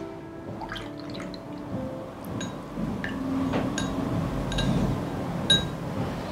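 Paintbrush rinsed in a jar of water: the water swishes, and the brush taps the rim of the container with about half a dozen light ringing clinks in the second half. The last clink is the loudest.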